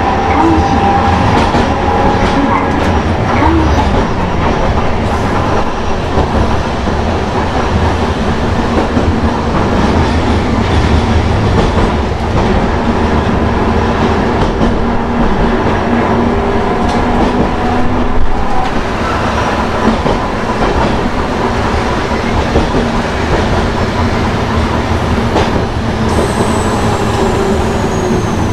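Hankai Tramway Mo 351-series tram running on street track, its nose-suspended (tsurikake) traction motors and gears whining over a steady running rumble, with clicks and rattles of the wheels on the rails. The higher whine is strongest in the first few seconds, then fades.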